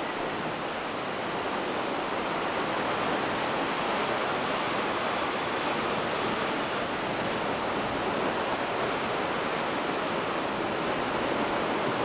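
Steady wash of sea surf, an even noise that holds without breaks.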